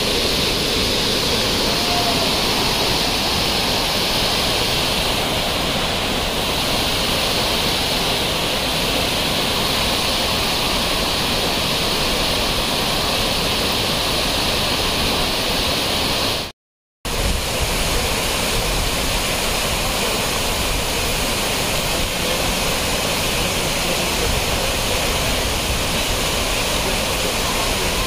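Fast white water of a monsoon-swollen rocky stream and waterfall, rushing steadily. It cuts to silence for a split second about two-thirds of the way through, then resumes.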